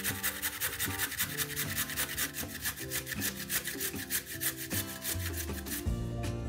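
A carrot being grated by hand on a stainless-steel box grater: quick, even rasping strokes that stop near the end.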